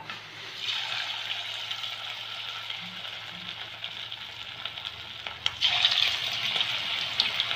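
Marinated chicken pieces sizzling as they go into hot sunflower oil to deep-fry. The sizzle starts about half a second in and grows louder a little after five seconds in, when a second piece is dropped in.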